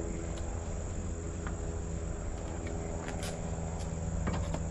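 A steady machine hum with several overtones, with a few light clicks and taps over it, most of them close together near the end.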